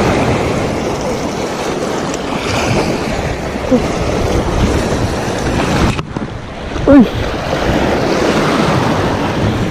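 Small waves washing and breaking over the rocky shallows, with wind buffeting the microphone. A brief pitched sound stands out about seven seconds in.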